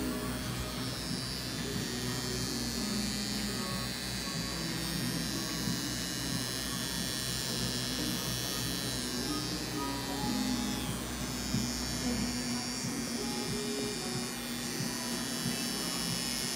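Scalp micropigmentation pen machine buzzing steadily as it needles pigment into the scalp, with music playing in the background.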